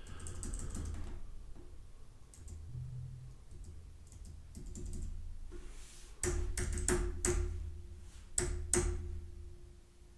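Keys being pressed on an Apple Magic Keyboard while pairing it: a few light clicks early on, then a quick run of about six sharp keystrokes a little past halfway.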